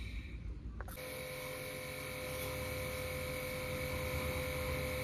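Small electric pressure washer's motor running with a steady hum. It comes on about a second in, as it pumps water to wash down an air-conditioner unit.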